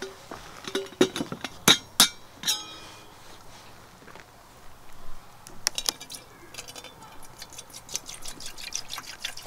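Sharp metal clinks, one with a brief ring, as a metal kettle is handled and set down, then water poured from a plastic bottle into the kettle, trickling and splashing over the last few seconds.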